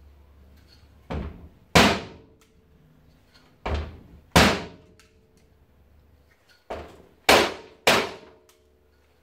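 Hitachi air suspension compressor knocked against a metal workbench to shake the desiccant out of its dryer: seven sharp knocks in twos and threes, each with a short ring.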